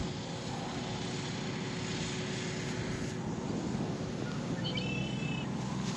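A truck engine idling steadily, a low continuous hum under a light hiss. A short high chirp comes about five seconds in.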